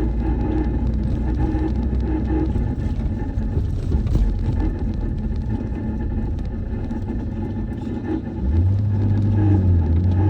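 Subaru Sambar running with a steady low rumble; about eight and a half seconds in, a louder low hum joins and holds. It is the abnormal noise (異音) that the owner is recording the vehicle for.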